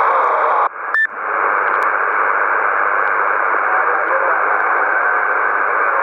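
Yaesu transceiver receiving 27 MHz CB on lower sideband: the tail of a voice relayed by a simplex parrot repeater, a short beep about a second in, then steady hiss cut off above speech pitch, with a distant station's reply too weak to hear through it.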